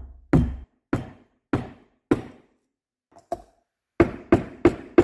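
Hammer blows on a punch set through the bearing of a Yamaha Raptor 660 water pump, driving the shaft seal out from behind. Five hard knocks come about half a second apart, then a short pause with a couple of light taps, then a quicker run of about three blows a second.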